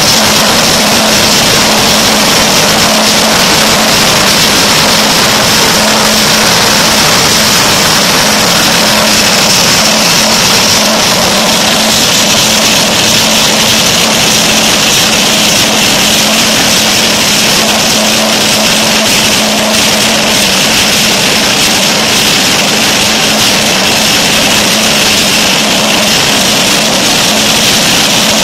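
Dry-mix mortar plant feeding machinery running: a loud, steady machine drone with a constant hum and an even airy hiss.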